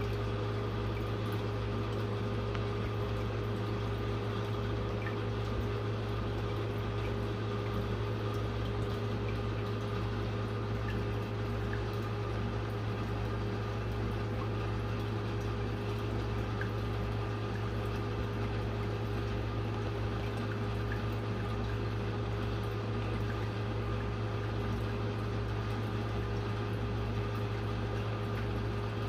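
Aquarium pump humming steadily, with a faint wash of moving water.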